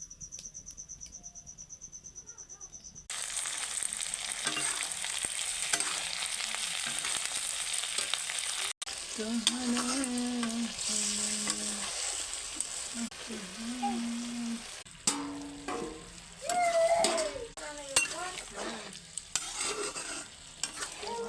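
Chicken pieces sizzling in hot oil in a pan and being stirred, a steady frying hiss that starts abruptly about three seconds in. Before that there is a fast, even, high-pitched pulsing.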